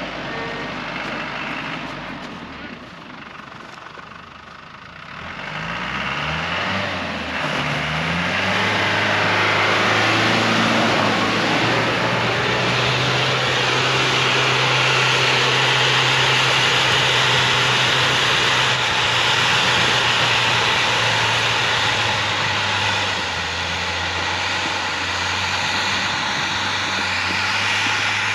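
Land Rover Defender 4x4's engine, quieter at first, revving up about five seconds in and then running steadily hard under load as the vehicle ploughs through deep snow.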